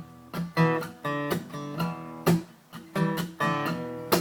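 Acoustic guitar playing a blues introduction, chords strummed and picked with sharp attacks every half second or so.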